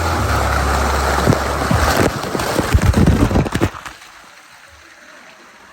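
Loud rushing water and wind noise over a low steady hum, breaking into a flurry of knocks and splashes, then dropping off suddenly about two-thirds of the way in.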